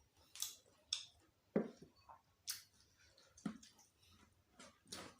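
Close-miked eating: a person chewing and biting food, with about seven separate crisp crunches and wetter bites at irregular intervals.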